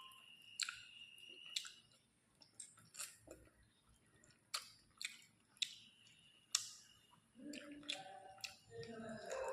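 Close-miked chewing and mouth sounds of someone eating rice and curry: sharp, wet clicks and smacks every half second to a second.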